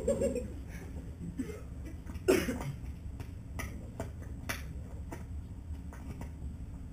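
A single cough about two seconds in, over a quiet, low room hum, followed by a few faint scattered clicks.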